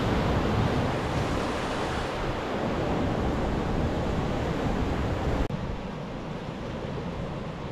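Ocean surf washing against a rocky shore, a steady rushing with low rumbles of wind on the microphone. It drops abruptly to a quieter wash about five and a half seconds in.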